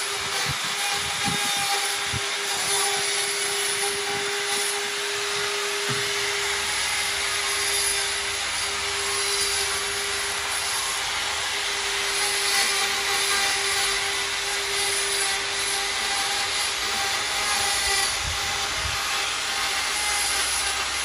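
Handheld electric carving tool running with a steady whine, its bit grinding into a carved wooden relief panel.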